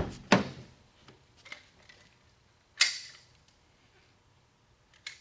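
A few sharp clicks and knocks from a hand seam-sealer applicator gun being worked as gray seam sealer is squirted behind a door skin, the loudest near three seconds in, with faint taps between.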